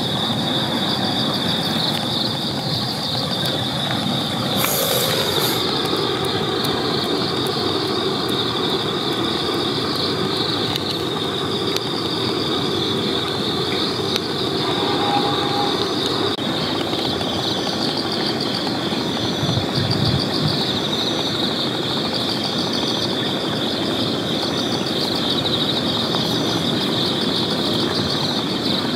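Steady high-pitched chorus of night insects over a constant low rumble.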